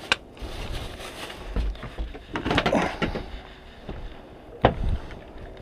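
Clicks and knocks of gear being handled aboard a small fiberglass fishing boat: a sharp click near the start, a clatter about two and a half seconds in, and another sharp click about four and a half seconds in.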